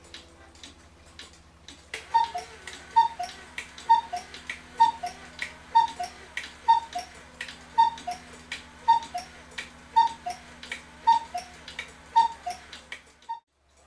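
Citizen battery cuckoo clock ticking, then about two seconds in it starts to cuckoo: a two-note call, high then low, repeated about once a second a dozen times over the faint hum of the small motor that drives the cuckoo. It cuts off shortly before the end.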